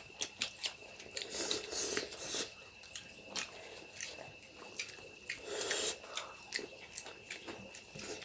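Close eating sounds of snail curry being chewed: many small wet clicks and smacks at an irregular pace.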